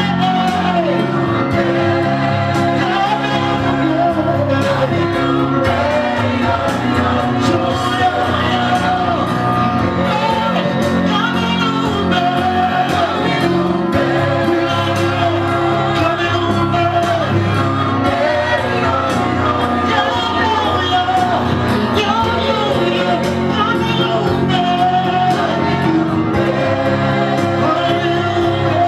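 Church worship music: a sung melody over a band's held chords and a steady beat, with shouts from a congregation in a large hall.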